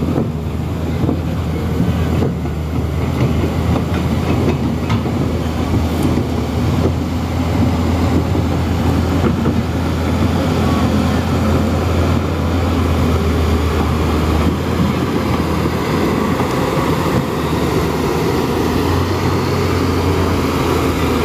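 JCB crawler excavator's diesel engine running steadily as the machine travels on its steel tracks, with a continuous rattling clatter from the tracks over the engine's low hum.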